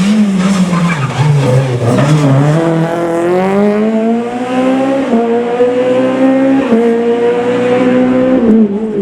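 Rally car engine easing off, then accelerating hard, its pitch climbing through the revs with two quick upshifts about five and six and a half seconds in; the engine note drops near the end.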